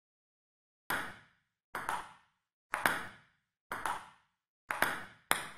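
Table tennis ball hits in a rally, about one a second and quickening near the end, each sharp click echoing briefly.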